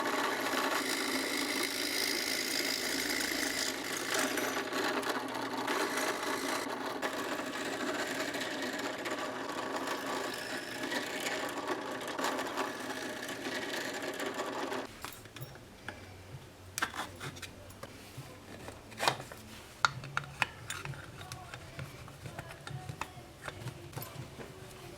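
Drill press running and boring holes in wood, a steady motor sound with cutting noise that stops suddenly about fifteen seconds in. Light clicks and knocks of handling follow.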